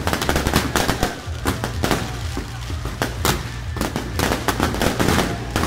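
Ground fireworks firing a rapid, irregular string of sharp firecracker bangs as they blast out confetti and coloured smoke, many cracks a second with no pause. Band music plays underneath.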